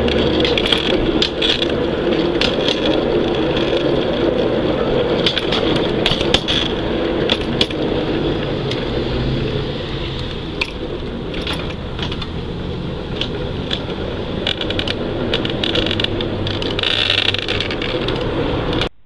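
A 5-inch gauge Maxitrak Planet battery-electric locomotive running along loose track, its wheels clicking and clattering over the unjoined rail ends above a steady running noise.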